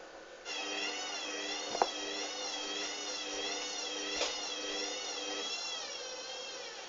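Hoover Dynamic washing machine's drum motor whining as it turns the drum, its pitch wavering up and down, with two sharp knocks from inside the drum.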